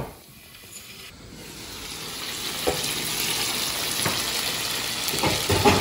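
Mutton pieces sizzling in oil in a karahi as the cooking water cooks down. The hiss builds up over the first couple of seconds and then holds steady, with a few light knocks near the middle and end.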